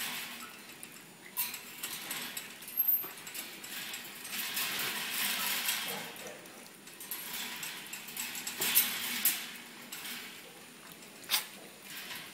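Wire pet cage rattling and clinking as a small dog and a rabbit scuffle about inside it: swells of scuffling noise with a handful of sharp metallic clinks standing out.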